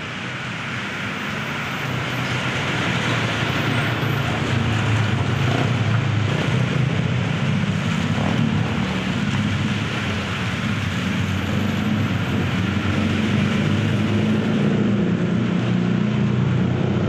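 Rain falling on wet asphalt, mixed with the steady hum of motor traffic on the road, which swells over the first few seconds and then holds.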